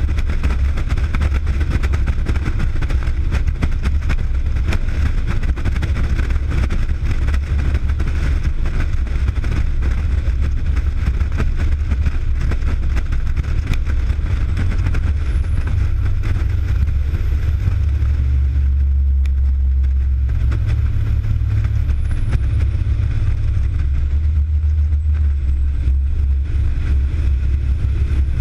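Fire tanker truck driving at highway speed: a steady, loud low rumble of its diesel engine with road and wind noise on the outside-mounted camera's microphone.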